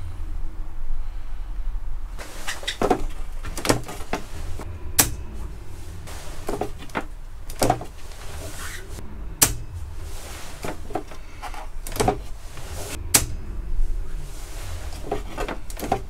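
About a dozen sharp clicks from a household consumer unit's RCD tripping off and its switch being pushed back on by hand, over and over during an RCD trip test.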